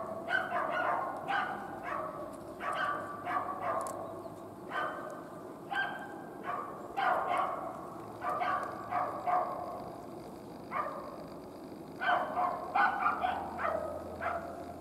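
A dog barking repeatedly, in runs of several short barks with brief pauses between them.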